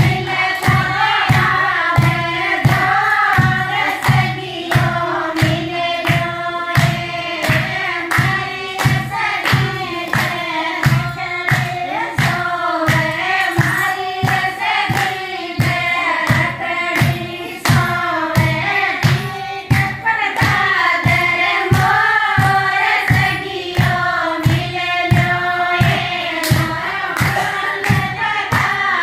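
A group of women singing a Marwari devotional bhajan together, in unison, over a steady clapped beat of about two strokes a second.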